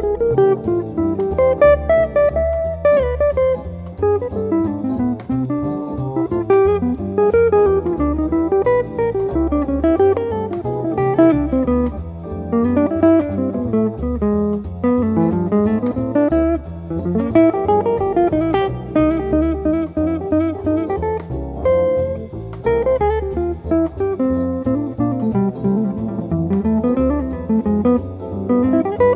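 Archtop electric jazz guitar improvising with a pick: quick single-note runs that climb and fall, over low notes struck at a steady pace.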